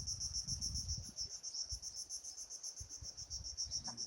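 Insects chirping in a steady, high-pitched trill with a fast, even pulse, over a low uneven rumble.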